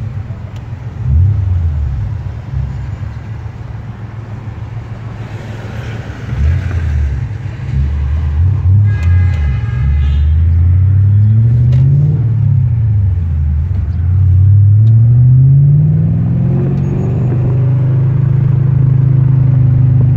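Dinan-tuned BMW E39 M5's V8 heard from inside the cabin, pulling hard through the gears: the engine note climbs in pitch, drops at each shift and climbs again several times, then holds a steady drone near the end.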